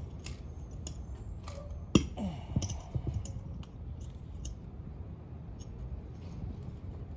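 Flathead screwdriver digging and prying at the old rubber bushing in a BMW E36 differential's cast housing: scattered metal clicks and scrapes, with one sharp knock about two seconds in, then fewer and quieter clicks.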